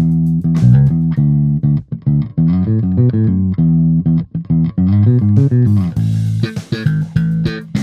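Electric bass guitar played through an Ampeg Rocket Bass RB-108 30-watt combo amp: a continuous run of quick plucked notes with a full low end. Over the last two seconds the note attacks turn sharper and brighter.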